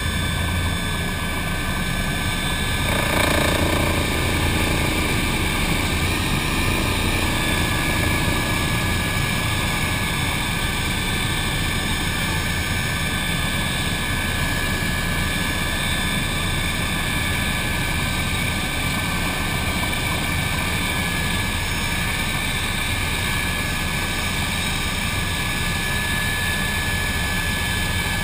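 Cabin noise of an MBB Bo 105 twin-turbine helicopter in flight: a steady rotor and engine drone with a constant turbine whine, swelling briefly about three seconds in.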